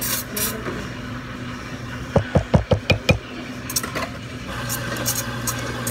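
Espresso machine steam wand hissing as it steams milk in a stainless steel pitcher, over the machine's steady hum. About two seconds in comes a quick run of about six thumps.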